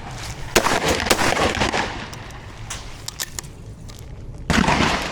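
A single shotgun shot at a skeet target about half a second in, its report trailing off over the next second and a half, followed by scattered clicks and a short burst of noise near the end.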